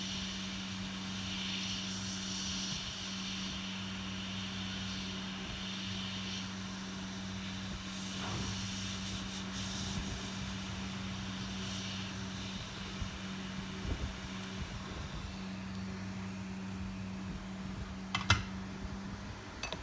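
Hot air rework station blowing steadily, a continuous low hum with airy hiss that swells and fades, as used to heat a phone logic board for lifting off a chip. A sharp click sounds near the end.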